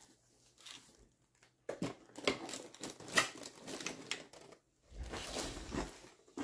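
Hands moving a cardboard shipping box and its packaging: short rustles, scrapes and light knocks in separate bursts, the loudest a little after three seconds in.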